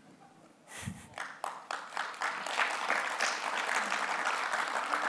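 Audience applauding: a few scattered claps about a second in, swelling within a second or so into steady applause.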